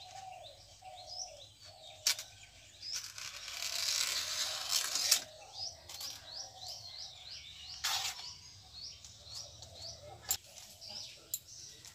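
Banana leaf being sliced on a boti blade: a rustling, tearing slice lasting about two seconds, then a few crisp snaps as pieces are cut off. Small birds chirp repeatedly in the background.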